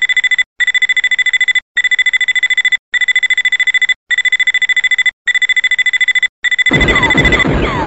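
Electronic target alarm clock going off: a rapid high-pitched beeping in groups of about a second, separated by short gaps. Near the end a loud, noisy sound with falling pitch sweeps comes in over it, and the beeping stops.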